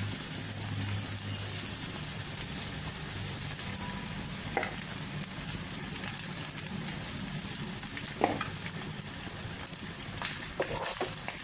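Scrambled egg and chopped vegetables sizzling in oil in a non-stick wok while cooked basmati rice is tipped in on top: a steady frying hiss, with two short sharp knocks about four and a half and eight seconds in.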